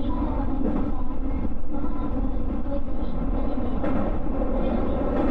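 JR West 221 series electric train running on the line, heard from inside the front car: a steady rumble of wheels on rail with a constant hum over it.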